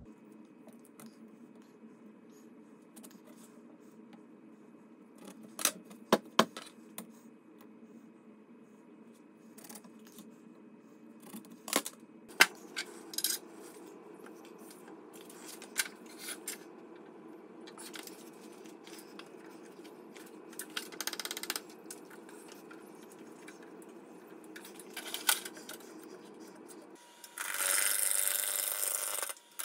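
Scattered knocks and clicks as a square red cedar block is handled and mounted between the centres of a wood lathe, over a low steady hum. Near the end, a gouge starts cutting into the spinning cedar block with a loud, rough scraping noise as the square blank is turned toward round.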